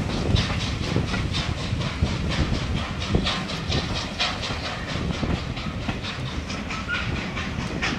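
Passenger carriages of a heritage steam train rolling past close by. Their wheels clatter over the rail joints in a quick, repeated clickety-clack over a steady rolling noise.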